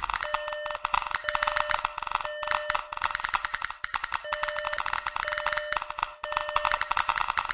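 Electronic beeping, in half-second beeps about a second apart: three beeps, a pause, then three more, over a dense crackle of rapid clicks.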